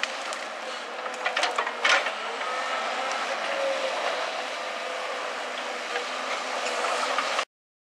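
Link-Belt 210 LX excavator's diesel engine running steadily as the machine swings with its log grapple, with a few sharp metal clanks about a second or two in. The sound cuts off suddenly near the end.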